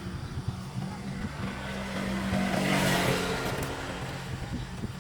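An engine running steadily, with a rush of noise that swells to a peak about three seconds in and then fades.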